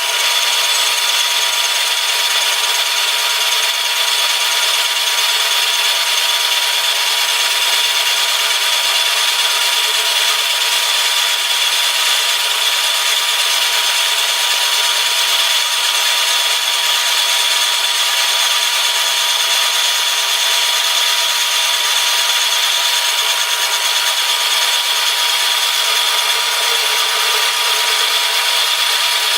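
Milling machine cutting metal, a steady grinding-hiss of the cut with a constant high whine held throughout.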